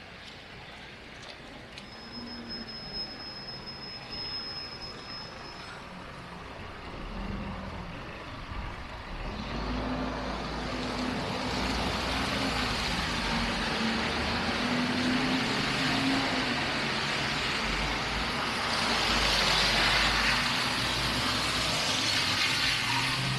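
Road traffic: a large vehicle's engine and tyres grow louder and pass close by, with the loudest hiss near the end. A faint, thin, steady high whine sounds for a few seconds near the start.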